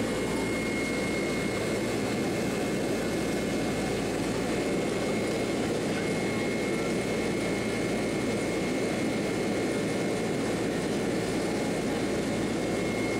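Boeing 767-300ER jet engines at climb-out power, heard from the cabin beside the wing: a steady, even rushing roar with a thin, constant high whine above it.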